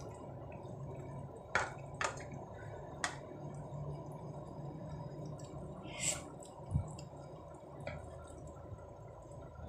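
Jackfruit stew in coconut milk simmering in a pan, the thick sauce bubbling and plopping softly over a steady low hum, with a few sharp clicks, three within the first three seconds.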